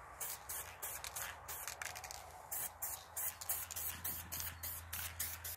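Aerosol spray-paint can sprayed in short, quick bursts, about three or four hisses a second, as paint is laid through a stencil onto cardboard.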